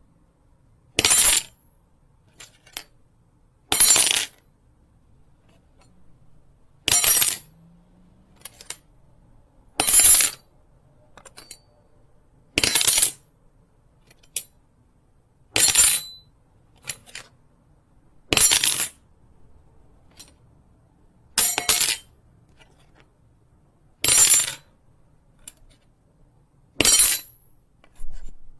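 Metal knife blade giving short, bright metallic scrapes with a high ring, one about every three seconds, around ten in all, with faint small clicks between them.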